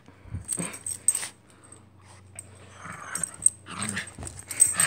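Small Jack Russell Terrier mix at play with a rope toy, making short bursts of growls and breathy huffs.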